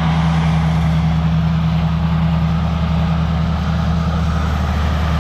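Motor engine running steadily with a low, even hum.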